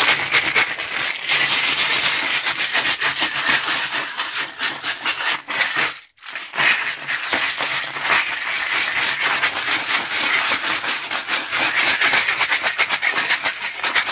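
Lead bullet cores rattling in a plastic jug of dish-soap and citric-acid wash as it is shaken hard, a dense, rapid clatter that stops for a moment about six seconds in and then resumes. The shaking scrubs swaging lube off the cores and wears down their flashing ridges.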